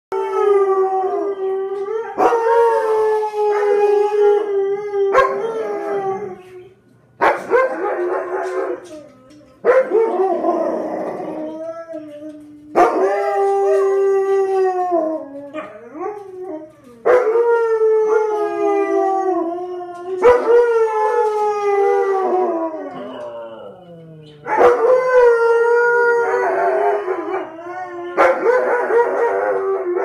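Dog howling, a run of long howls with short breaks between them, many trailing off downward in pitch, set off by the noon tornado sirens.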